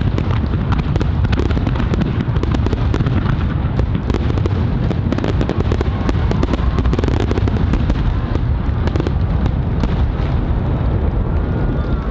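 Fireworks finale barrage: a continuous low rumble of booming shells packed with rapid crackling bangs, and a faint whistle or two rising through it.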